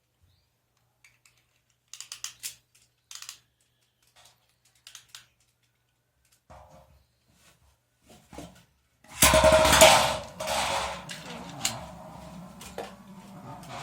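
A few faint clicks, then about nine seconds in two Beyblade spinning tops, one of them the metal Beyblade Tornado, are launched into the stadium and spin, scraping loudly with sharp clicks of the tops clashing.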